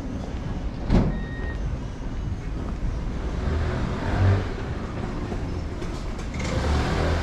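Busy city street background with motor-vehicle traffic rumbling and swelling twice. A single sharp knock comes about a second in.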